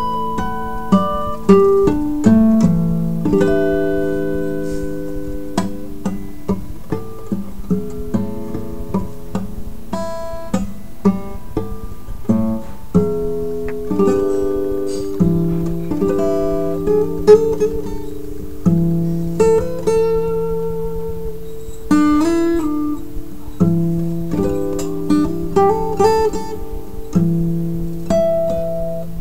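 Acoustic guitar played with a pick: a slow, unaccompanied melody of single picked notes mixed with chords, each note left ringing. A few notes waver in pitch with vibrato partway through.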